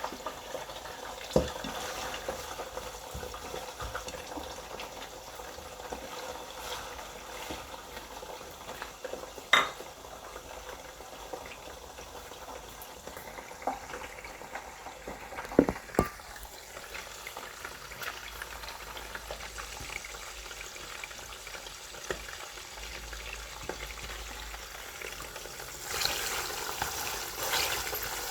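Food deep frying in hot oil: a steady sizzle with dense crackling. A few sharper clicks or pops stand out, and the sizzle grows louder near the end.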